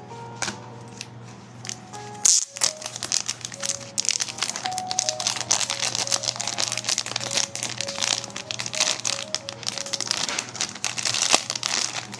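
Packaging crinkling and crackling as it is handled and opened, dense and uneven from a couple of seconds in, over quiet background music.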